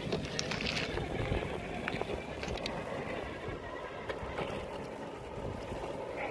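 Traxxas TRX-4 Bronco RC crawler working its way over loose dirt and rocks: a faint steady whine from its electric motor and gears under scattered scrapes and clicks of the tyres on soil and stones.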